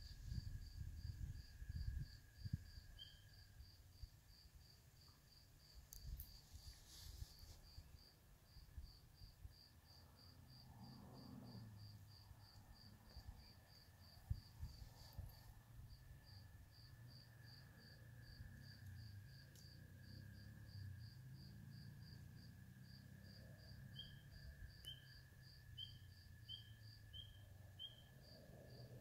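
Spring peeper frogs calling, faint: one high peep repeats steadily about twice a second, and another peeper's short rising peeps come once early on and about once a second near the end. A faint steady high hum and low rumble lie underneath.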